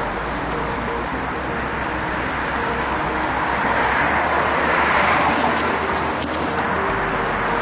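Road traffic passing on a wet road: a steady hiss of tyres, swelling as a vehicle goes by close, loudest about five seconds in.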